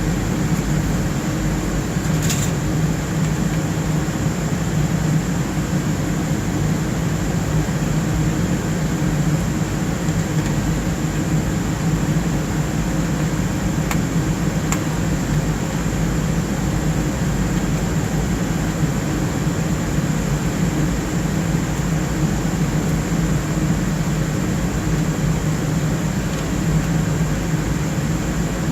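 Steady whooshing hum of server cooling fans, as from an HPE BladeCenter C7000 blade enclosure running, with a thin high whine over it and a few faint clicks.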